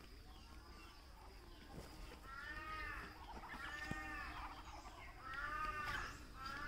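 Muscovy ducks calling: four drawn-out calls about a second each, starting about two seconds in, each rising and then falling in pitch.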